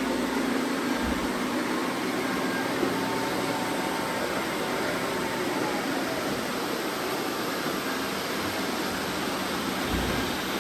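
Several robot vacuum cleaners running at once: a steady whirring hum.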